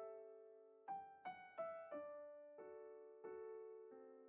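Soft solo piano background music: single notes and chords struck every half second to a second, each ringing and fading.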